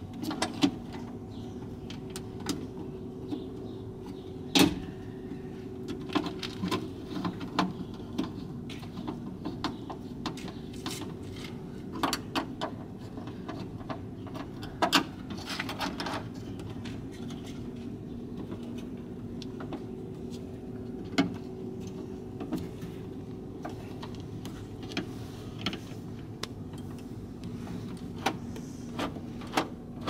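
Scattered clicks, taps and knocks of a screwdriver and metal and plastic parts against a bare steel car door as a power door-lock actuator and the inner door handle are fitted back in place. The sharpest knock comes about four seconds in, with others in small clusters later, over a steady low hum.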